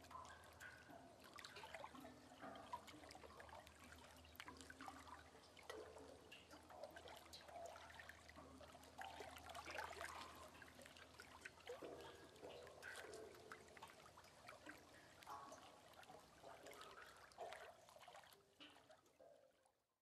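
Faint trickling, gurgling water with small drips and splashes. It falls away to silence near the end.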